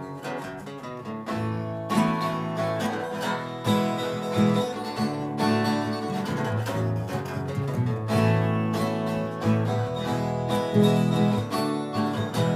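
Live acoustic pop-rock instrumental intro: steadily strummed acoustic guitar over a bass line, with no vocals yet.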